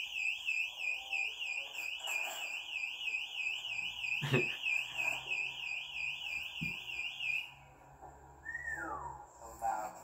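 Emergency-exit door alarm sounding, set off by opening an alarmed exit door: a loud, fast-warbling electronic tone that cuts off about three quarters of the way through. A knock is heard about four seconds in.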